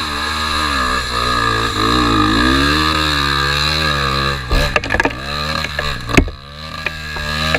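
Trail motorcycle's engine revving up and down as it rides, with a cluster of sharp knocks and rattles a little past halfway, then the engine dipping briefly and running steadily again.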